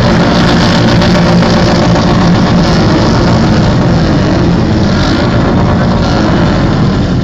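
Harley-Davidson motorcycle V-twin engines roaring loud, with the revs rising and falling.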